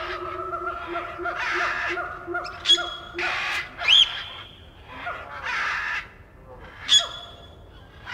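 Animal calls: sharp rising-and-falling bird-like cries, three of them, over hissing bursts and a steady pulsing hum in the first half.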